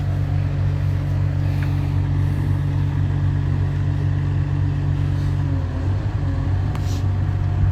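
A steady low engine rumble, as of a car running, that shifts a little about five and a half seconds in.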